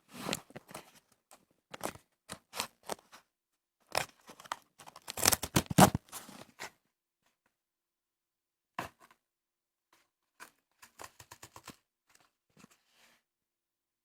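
A postal parcel being torn open by hand: irregular tearing and crinkling of the packaging, loudest about five to six seconds in, then a pause and scattered light rustles and clicks.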